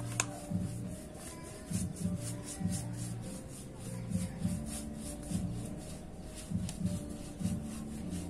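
Paintbrush brushing back and forth over pallet wood in quick, evenly repeated rubbing strokes, several a second.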